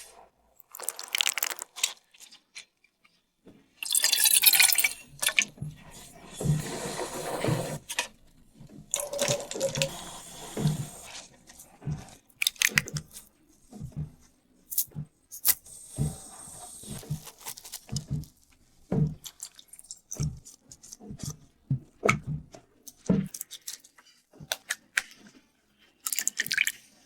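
Kitchen food-preparation sounds while a cake is made: a string of separate knocks and taps from utensils and bowls, with a few stretches of liquid being poured or stirred.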